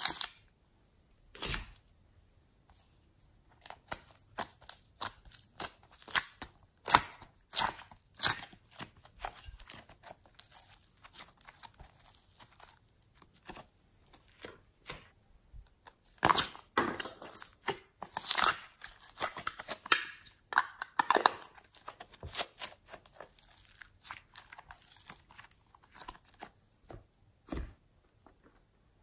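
Soft clay and sticky slime being handled by hand: a run of small crackles and sticky tearing clicks as clay is pulled from a plastic mold and pressed into a tray of slime. Two sharp knocks come in the first couple of seconds, and the crackling thickens midway.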